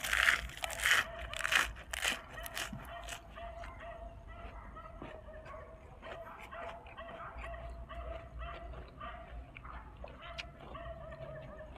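Crunching and chewing of a mouthful of crispy fried dried squid wrapped in lettuce, with loud crackly bites in the first three seconds. Under it, an animal keeps up a high, wavering whine in short repeated cries.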